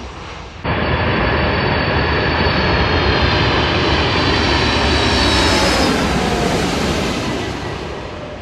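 Cargolux Boeing 747 freighter's four jet engines as it flies low overhead on approach with its gear down: a steady rumble with a high whine that slowly falls in pitch. It starts abruptly about half a second in, builds to its loudest about five seconds in, then fades as the jet passes.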